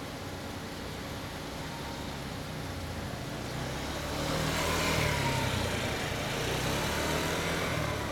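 Honda Fusion 250 scooter's single-cylinder engine idling through an aftermarket Real Speed muffler, a steady low exhaust note that gets louder about halfway through.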